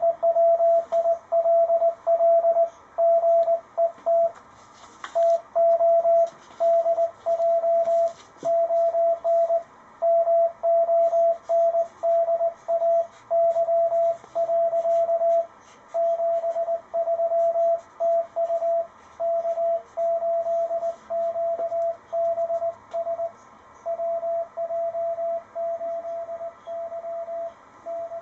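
Morse code (CW) signal coming through the speaker of a Ten-Tec Paragon shortwave radio: a single steady tone keyed on and off in dots and dashes, over faint band hiss. The signal grows a little weaker near the end.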